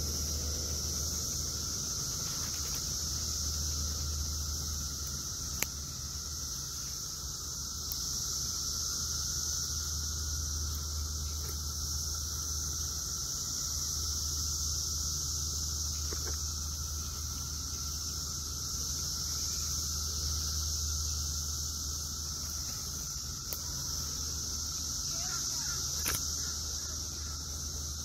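Periodical cicadas chorusing: a continuous high-pitched drone with a thinner, lower steady whine beneath it. A low rumble runs underneath.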